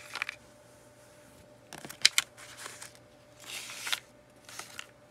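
Paper ephemera pieces and a clear plastic-wrapped pack handled by hand: a few short rustles and crinkles, the sharpest about two seconds in, with quiet stretches between.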